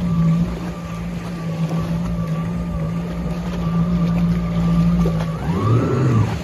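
Jet ski engine running at a steady speed over wind and water noise; about five and a half seconds in, its note drops lower and swoops as the throttle changes.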